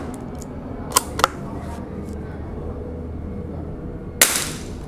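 Gunshots on a shooting range: two quick sharp cracks about a second in, then a louder shot near the end that rings out briefly, over a steady low background hum.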